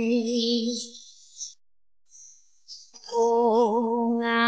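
Background music with a singing-style melody of long held notes, breaking off for about two seconds in the middle and then resuming.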